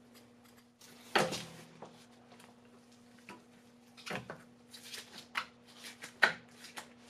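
Metal strut parts clunking and clinking as they are handled and fitted. The top mount is being seated on the strut and spring in the compressors: three sharper knocks with a short ring, about a second in, near four seconds and near six seconds, and lighter clicks between them.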